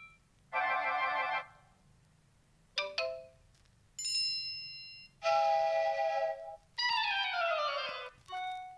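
A run of about six short smartphone alert and ringtone sounds played one after another with brief gaps: quick trilling tones, chimes, a falling sweep about seven seconds in, and a short ding at the end.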